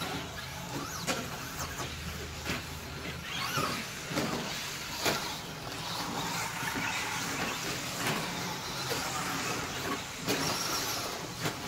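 Electric RC short-course trucks (Traxxas Slash 2WD) racing on dirt: motors whining up and down as they accelerate and slow, with tyres scrabbling and frequent short knocks.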